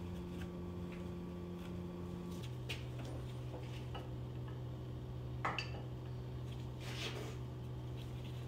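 Light metallic clinks and a few short scrapes from handling engine parts and tools, over a steady low hum that drops in pitch about two and a half seconds in.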